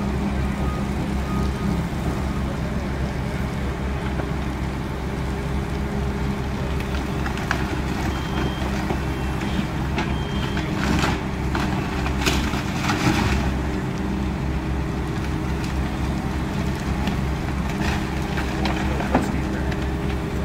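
Heavy diesel engines running with a steady low drone. An excavator's demolition claw cracks and crashes through the burnt timber of a building, most heavily a little past halfway.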